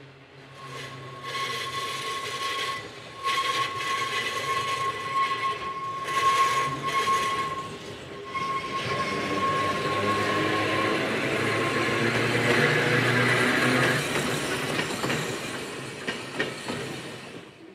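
Manx Electric Railway electric tramcar No. 22 and its trailer running past on a curved track, the wheels and running gear growing louder as they come close. A steady high-pitched wheel squeal on the curve comes and goes through the first ten seconds or so. A few sharp clicks of wheels over rail joints come near the end as the trailer passes.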